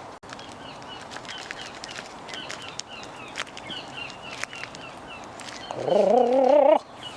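Small birds chirping over outdoor ambience. About six seconds in, a loud warbling, wavering call lasts about a second and cuts off.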